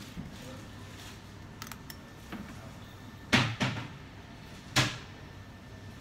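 Two sharp knocks about a second and a half apart, the first followed quickly by a smaller second hit, over a low steady hum.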